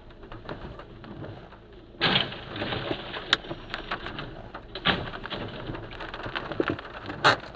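A van crashing and rolling onto its side, heard from inside a following car: a sudden loud crash about two seconds in, then a clatter of sharp knocks and debris, with one more sharp bang near the end.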